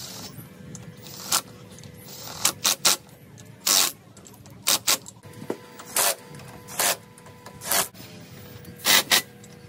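Short bursts of air hissing from a new kart tyre's valve, a dozen or so spread irregularly, each lasting a split second to about a third of a second, as the tyre pressure is let down and checked.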